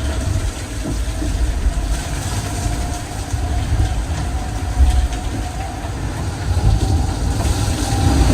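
IMOCA 60 racing yacht driving hard through rough seas in strong wind: a loud, continuous low rumble of hull and water, with a thin steady whine above it.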